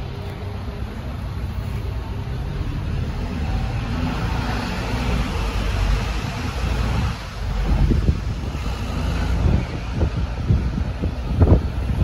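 Vehicle noise: a steady low rumble, with wind buffeting the microphone in gusts through the second half.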